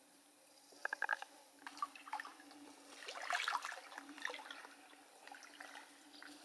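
Water splashing and sloshing around the legs of someone wading slowly through a shallow river, in a few irregular bursts: a cluster of sharp splashes about a second in and the loudest, longer slosh a little after the middle.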